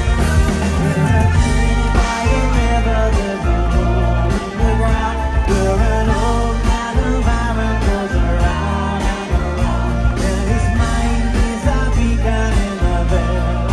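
Live rock band playing loudly through a concert PA, with electric guitars, bass guitar, drums and keyboards.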